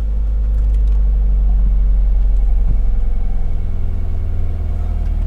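Subaru WRX turbocharged flat-four running steadily at low revs through an Invidia Q300 cat-back exhaust, a low rumble while the engine warms up.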